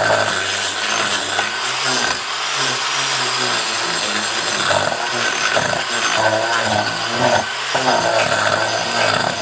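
Corded angle grinder with a disc running against a wooden log, grinding away wood with a steady whine whose load shifts as the disc bites in and eases off.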